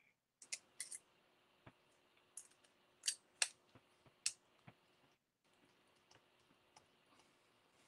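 Sparse, faint clicks and ticks of small RC-car parts and a hex driver being handled, with three sharper clicks between about three and four and a half seconds in.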